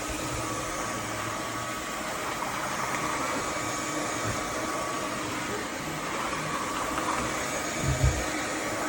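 Roborock F25 GT cordless wet-dry vacuum mop running steadily as it is pushed over a spill of chips, a steady whir of air with a faint whine. A low thump about eight seconds in.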